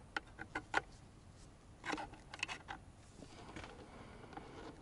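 Faint, scattered clicks and taps of a slotted screwdriver working the high-beam adjustment post on an ATV's handlebar headlight pod, loosening it to re-aim the beam. There are a few light ticks in the first second and a slightly louder tap about two seconds in.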